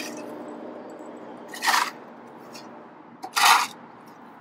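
A steel shovel blade scraping into loose dirt twice, about a second and a half apart, as a pile of soil is shovelled aside.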